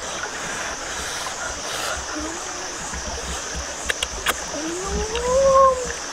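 Shallow forest stream running over rocks, with a steady high buzz above it. Two sharp clicks about four seconds in, then near the end a person's hum gliding up and back down, the loudest sound.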